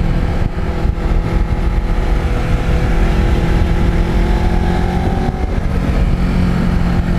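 Kawasaki Ninja sport motorcycle engine running at a steady cruising pace, heard from on the bike with wind rushing past. Its tone thins slightly about five and a half seconds in.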